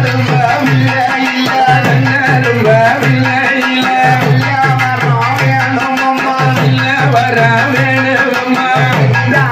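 Tamil kummi folk song to Amman: singing over a steady drum beat of about two to three low strokes a second.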